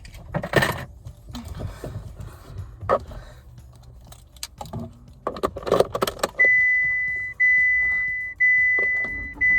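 Keys jangling and rustling with scattered clicks. About six seconds in, a car's warning chime starts: a steady high tone that repeats about once a second.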